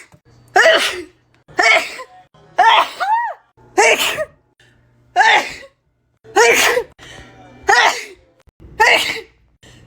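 A person sneezing over and over in a fit, about nine loud voiced sneezes coming roughly once a second with short pauses between them.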